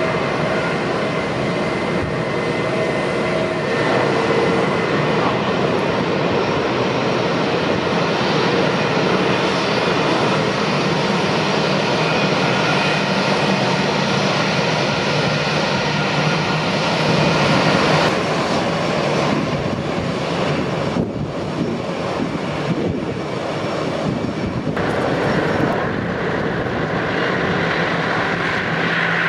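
Jet engines of taxiing Airbus A320-family airliners running at low taxi power: a steady rush with faint whining tones on top.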